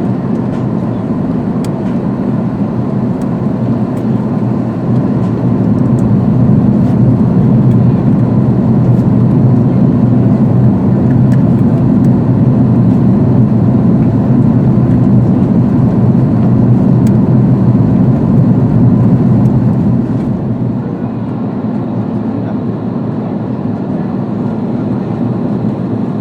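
Steady roar of jet engines and rushing air heard inside the cabin of an Airbus A330-200 airliner. It grows louder about five seconds in and drops back about twenty seconds in.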